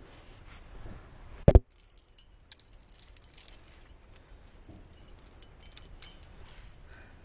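A single loud thump about a second and a half in, then the cams and carabiners racked on a climbing harness clinking and jingling in many small metallic clicks as the climber's hand works through the rack.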